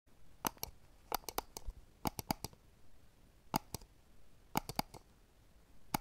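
Sharp, dry clicks in small irregular groups of two to four, about sixteen in all.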